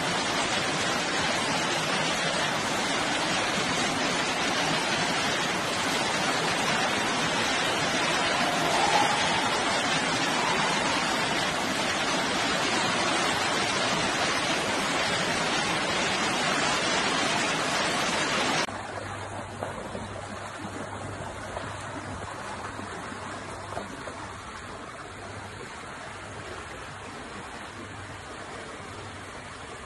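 Floodwater pouring into a flooded underground car park, a loud steady rush of water. About two-thirds of the way through it cuts to the quieter, steady sound of muddy floodwater running fast along a street.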